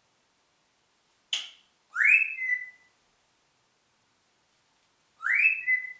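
Congo African grey parrot whistling: two rising whistles about three seconds apart, each levelling off into a short held note. A brief harsh noise comes just before the first.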